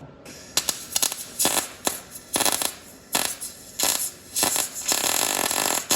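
Wire-feed welder arc crackling in a string of short bursts, with a longer burst near the end, as a steel engine mount is welded with the wire speed just turned up.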